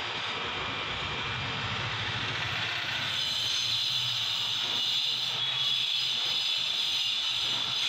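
Steady mechanical hiss over a low hum, with a brighter, higher hiss coming in about three seconds in and holding steady.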